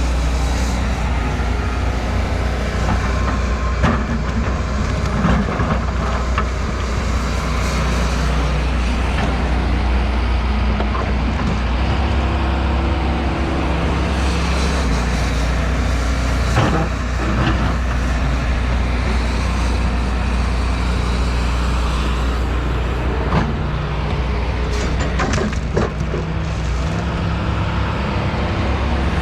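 Excavator's diesel engine running steadily, with a few sharp knocks and clanks from the machine at work.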